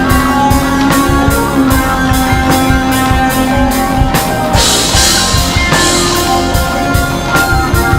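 Instrumental rock music: guitar over a steady drum-kit beat, with no vocals.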